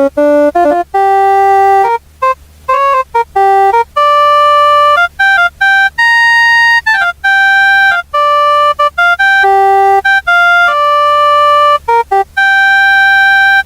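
Casio CTK-245 portable keyboard playing a simple melody one note at a time on one of its built-in tones, each note held at an even level and cut off sharply.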